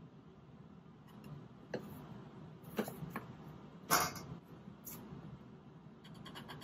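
Metal spatula scraping and knocking inside a plastic bottle of anhydrous magnesium sulfate powder, digging out powder settled at the bottom. A few separate scrapes and clicks, the loudest about four seconds in, then a quick run of small ticks near the end.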